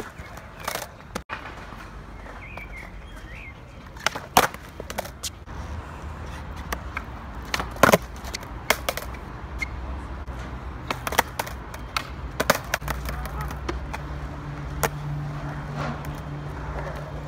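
Skateboard on concrete: the wheels roll with a low rumble, broken by repeated sharp clacks of the tail and deck striking the ground as tricks are popped and landed. A steady low hum comes in during the last few seconds.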